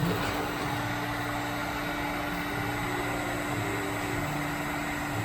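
Heat gun blowing hot air onto an aluminum body panel, a steady blower hum with a constant tone, heating the metal so the dent can be pulled without cracking.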